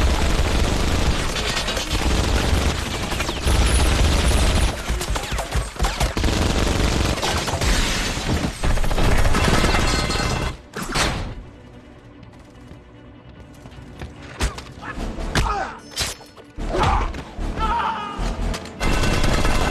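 Action-film sound mix of sustained heavy gunfire and explosions over a musical score for the first ten seconds or so. It then drops to a quieter stretch with a few scattered impacts and shots, and the gunfire picks up again near the end.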